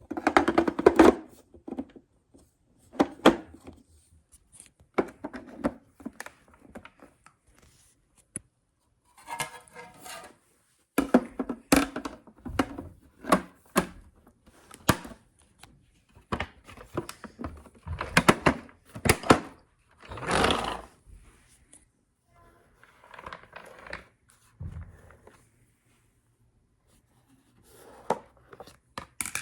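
Dry leaves crackling and crunching in irregular bursts, with a few short knocks, broken by silent gaps.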